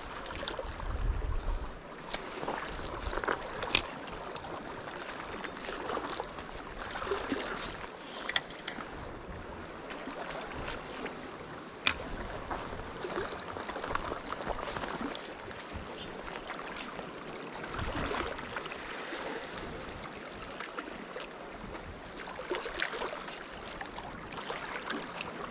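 Small sea waves washing and lapping against a rocky shore, a steady wash of water, with a few sharp clicks and knocks scattered through it.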